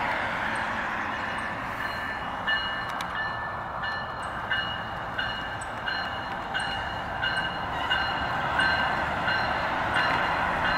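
AMT bilevel commuter train rolling across an elevated rail bridge: a steady rumble and hiss of the wheels on the rails. From about two seconds in, a short ringing clack repeats about every two-thirds of a second as the coaches pass.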